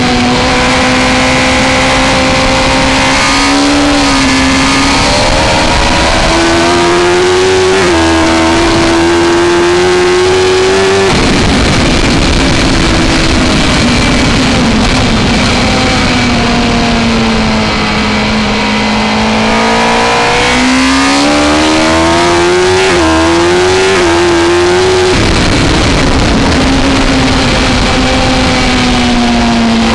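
A Suzuki GSX-R1000 K3's inline-four engine racing at high revs, recorded on board over heavy wind rush. The engine note climbs and steps down at gear changes in the first ten seconds, then falls away for several seconds as the bike slows. It climbs again through more shifts shortly after twenty seconds before falling once more.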